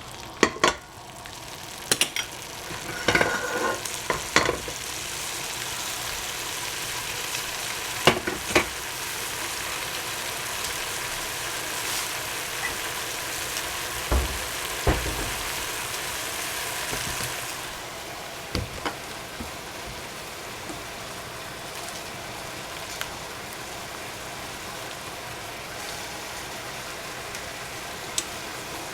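Food sizzling and frying in hot oil in a pan, a steady hiss that eases off about two-thirds of the way through. A cooking utensil scrapes and knocks against the pan now and then.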